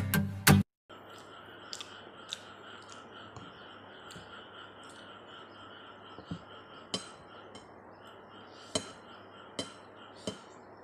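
Background music cuts off under a second in. Then cutlery clinks sharply against a plate about seven times, scattered, as a slice of cake is cut and eaten, over a quiet steady hum.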